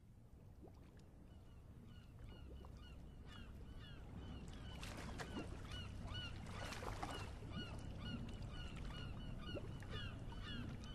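A crowd of birds calling, many short hooked calls over and over, fading in and growing louder.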